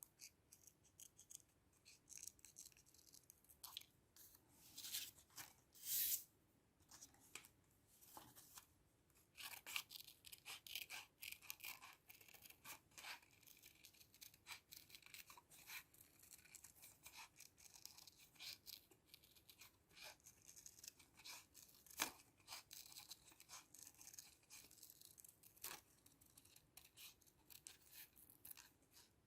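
Faint paper handling: irregular rustling, tearing and scraping strokes of paper, with a few sharp clicks about 6, 22 and 26 seconds in.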